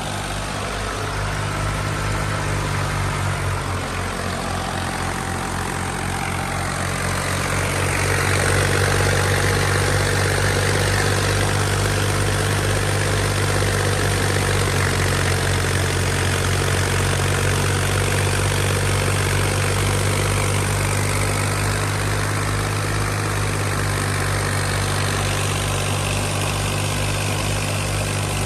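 Fiat 480 tractor's three-cylinder diesel engine running steadily under load, driving a wheat thresher. The thresher's dense rushing noise rides over the engine and grows louder about eight seconds in.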